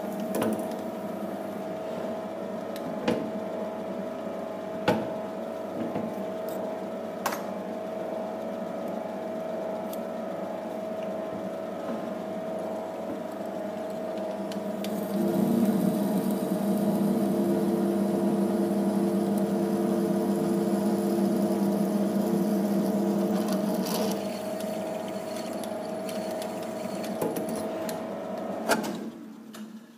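Small metal lathe running, drilling the centre bore of an aluminium timing pulley with a 6.5 mm twist drill from the tailstock: a steady machine hum with occasional sharp clicks. It gets louder from about halfway for several seconds, and the lathe runs down and stops just before the end.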